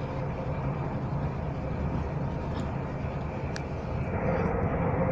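Inside a moving electric train (Heathrow Connect Class 360 Desiro): steady running rumble of wheels on rail, which grows louder about four seconds in as a steady hum rises.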